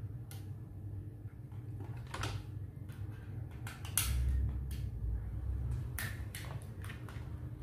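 Scattered clicks and knocks of a plastic radio-controlled toy dump truck being handled and turned over, the loudest knock about four seconds in, over a steady low hum.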